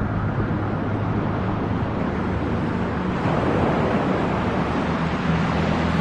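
Steady rushing noise, like surf or wind, over a low sustained drone, with a slow whooshing sweep about three seconds in.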